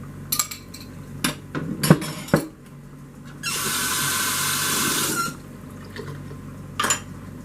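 A few light clinks of utensils on dishes, then a kitchen tap runs for about two seconds and is shut off, with one more clink near the end.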